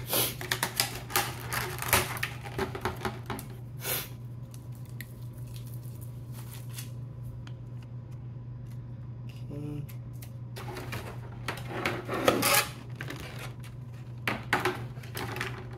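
Trading cards and plastic penny sleeves being handled: bursts of rustling and light clicks, with a quieter stretch in the middle, over a steady low hum.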